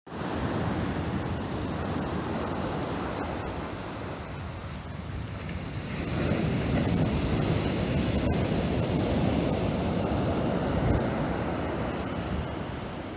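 Rough sea surf breaking on a sand beach, with wind buffeting the microphone; the rush grows louder about six seconds in.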